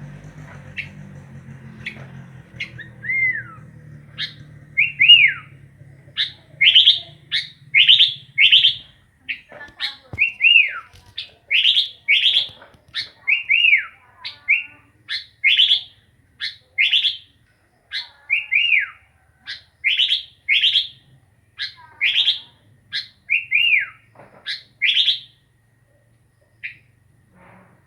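Sooty-headed bulbul (kutilang) singing: a long run of short whistled notes, some sliding downward, at about one or two notes a second. A low hum runs under the first few seconds and stops about nine seconds in.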